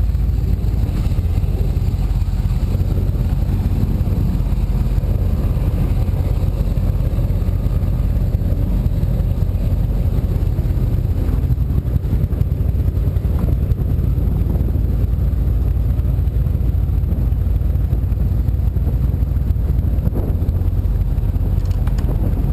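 Powerboat engine running steadily at low speed, a deep, even rumble that holds without revving.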